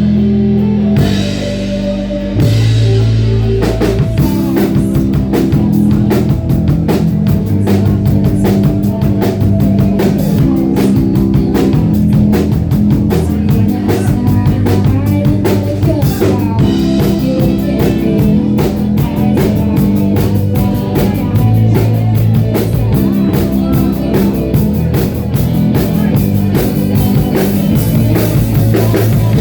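A live rock band playing, with drum kit, guitar and bass. It gets louder about two seconds in, and steady drum hits come in about four seconds in.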